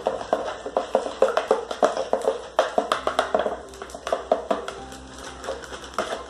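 Quick clicks and knocks of a plastic spoon stirring in a plastic bucket, mixed with a plastic bag of wheat flour being crinkled, over background music.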